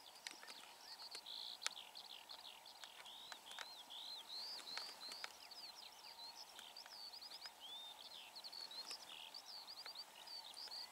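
A faint chorus of birds calling from a flock: many short, high calls overlapping almost without a break, with a few light clicks.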